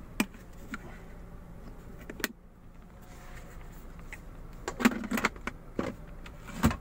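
Clicks and knocks of plastic centre-console trim being handled by hand: a few sharp single clicks, then a louder cluster of knocks about five seconds in and another near the end.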